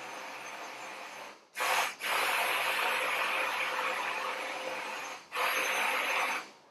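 Immersion (stick) blender whirring in a tall container of thick roasted red pepper purée. It is softer at first, runs louder from about a second and a half in with short breaks near two and five seconds, and stops just before the end.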